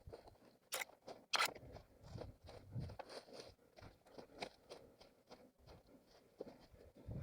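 Running footsteps crunching and rustling over rough forest ground, with two sharper cracks close together about a second in.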